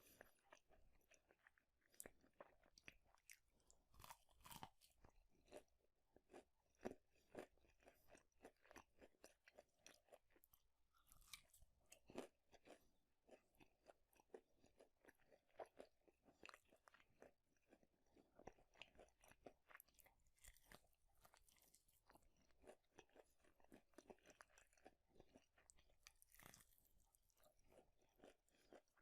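A person chewing crunchy food close to the microphone, with a steady run of irregular crisp crunches and small mouth clicks, quiet overall.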